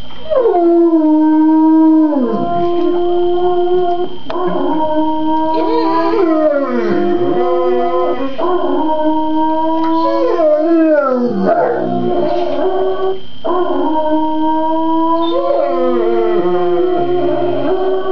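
Bullmastiff howling along with a steady held musical note, its howls sliding down in pitch several times.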